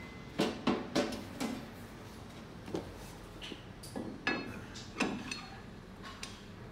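Metal hand tools clinking and knocking against steel parts on a race truck's rear chassis during hands-on mechanical work: about ten irregular, sharp metallic knocks, each with a short ring.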